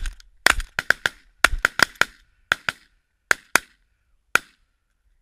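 Volley of shotgun shots from several hunters firing together, about fifteen sharp blasts in quick, partly overlapping succession, thinning to single shots near the end.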